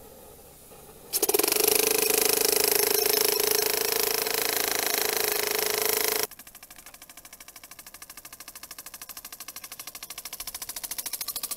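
A loud steady hiss with a held whistling tone starts about a second in and cuts off suddenly about six seconds in. Then comes a model steam boat's 3cc single-acting oscillating steam engine chuffing in a fast, even beat, growing louder near the end.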